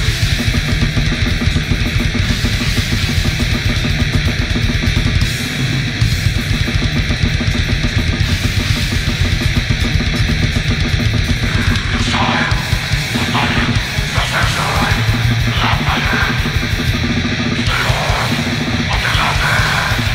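Black/death metal demo recording: distorted guitars over fast, dense drumming, with a higher part joining in from about halfway through.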